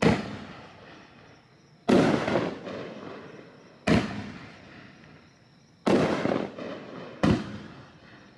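A nine-shot consumer fireworks cake firing. There are five sharp booms about two seconds apart, the last two a little closer together, and each one trails off over a second or so.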